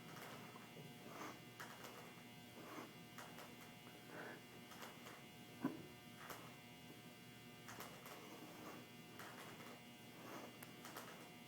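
Near silence: a faint, steady electrical hum of a small room, with soft repeated faint sounds and a single light knock about six seconds in.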